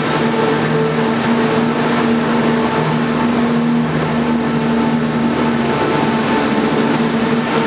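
Passenger train moving along the station platform: a steady drone made of several held tones over a rushing running noise.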